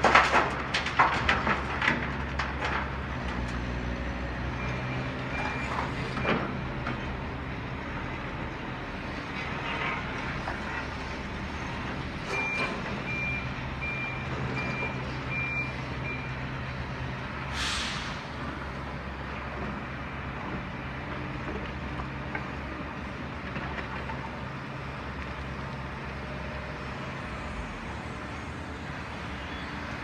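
Diesel construction machinery (an excavator and dump trucks) running steadily. In the first few seconds come sharp clanks of rock and dirt dropping into a steel dump-truck bed. A truck's backup alarm beeps in two short runs, the second longer, and an air brake hisses once about eighteen seconds in.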